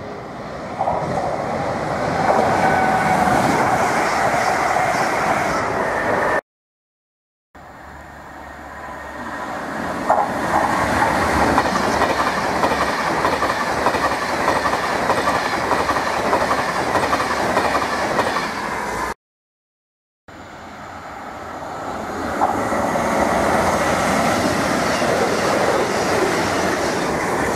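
Express passenger trains passing the platform at speed: a loud rush of wheels on rail with clickety-clack over the rail joints. There are three passes, each building up and then cut off abruptly.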